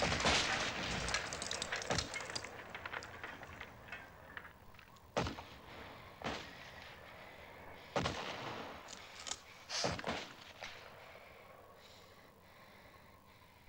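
Battle gunfire from machine guns and rifles. Rapid fire dies away over the first couple of seconds, then scattered single shots come every second or so and stop near the end.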